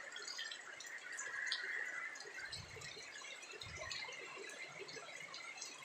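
Heavy rain falling: a steady wash of water noise with many scattered drips, and a couple of short low rumbles about two and a half and three and a half seconds in.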